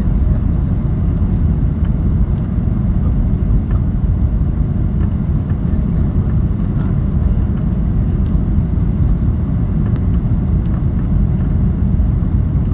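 Steady low rumble of a passenger airliner's engines and airflow heard inside the cabin as the plane comes in to land.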